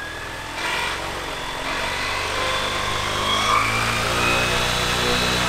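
Large 340 KV brushless electric motor spinning a giant propeller on a test stand: a loud, steady propeller drone with a motor whine, which steps up in level about half a second in. It is being run hard on 6S (24 V), a load that heats its wiring badly.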